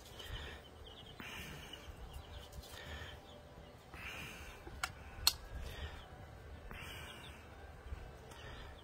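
Three-week-old chicks peeping faintly now and then, over a low outdoor rumble. Two sharp clicks about half a second apart come midway.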